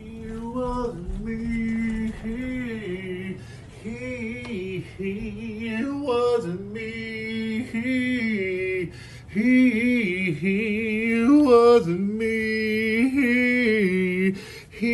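A solo voice singing a slow melody, holding long notes with a wavering pitch, in phrases that break off and start again.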